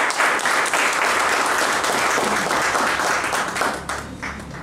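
Audience applauding, dense clapping that thins out to a few scattered claps near the end.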